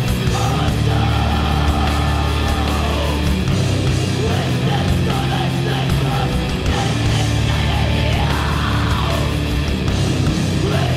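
Heavy, distorted rock band playing at full volume: guitars, bass and drums in a dense, aggressive punk-metal style.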